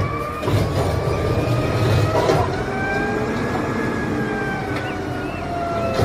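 Automated side-loading garbage truck working its arm: steady diesel engine rumble with a hydraulic whine that slowly rises and falls in pitch as the arm grabs a trash cart and lifts it, with a few clunks about two seconds in.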